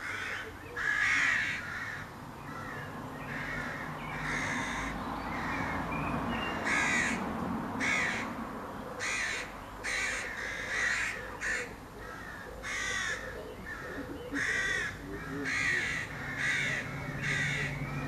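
Crows cawing over and over: short calls come at irregular intervals, often two or three close together.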